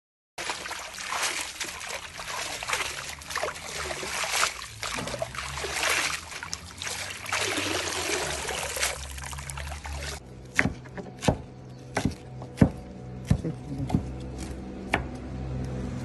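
Running water pouring and splashing over fresh purslane leaves as they are rinsed. About ten seconds in this gives way to about eight sharp knife chops on a plastic cutting board.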